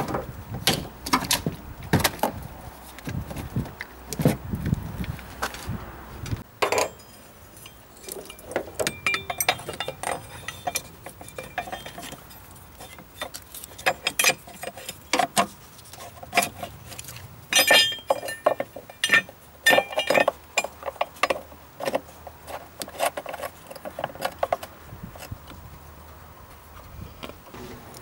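Irregular small metallic clicks and clinks of hand tools and small metal parts being handled during work on an electrical connector.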